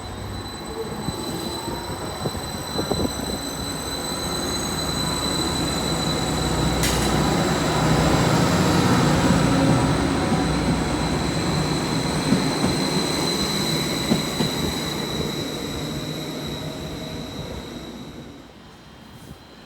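Greater Anglia Class 755 bi-mode multiple unit pulling out of the platform: a rumble of wheels and running gear with a steady high whine and a pitch that climbs as it picks up speed, growing louder for about ten seconds and then fading as it draws away. A sharp click about 7 seconds in.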